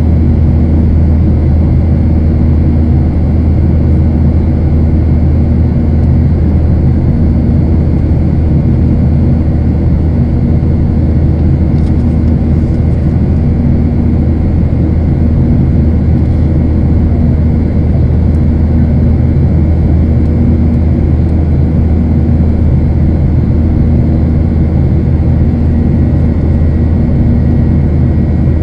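Steady cabin drone of a Boeing 737 in flight, heard inside the cabin from a window seat over the wing: turbofan engine and airflow noise with a deep low hum and a few faint steady tones.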